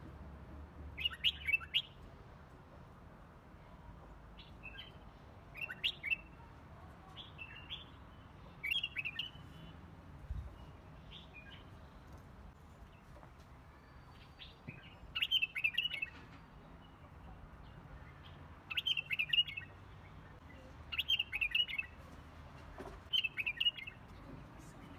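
A bird chirping in short, quick clusters of high notes, about a dozen times at irregular intervals of a second or a few seconds.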